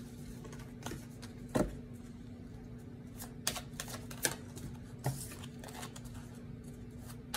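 A deck of tarot cards being shuffled overhand: irregular soft clicks and slaps as cards drop from hand to hand, with one louder knock about a second and a half in. A faint steady hum runs underneath.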